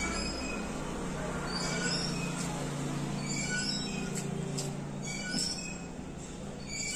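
Birds calling in short, high chirping phrases every second or two, over a low steady hum that comes in about a second and a half in and fades after about five seconds.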